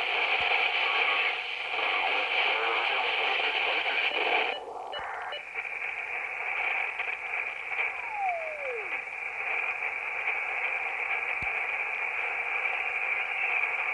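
Alinco DX-SR8T transceiver's internal speaker playing shortwave static and faint signals while being tuned across the 40-meter band. About four and a half seconds in the sound changes abruptly as the receiver goes from AM to lower sideband. Around eight seconds a whistle falls in pitch as the dial sweeps past a carrier.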